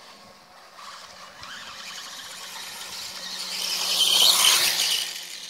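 Electric RC dirt bike's motor and drivetrain whining at high pitch as the bike drives closer, loudest about four seconds in as it passes close by, then fading.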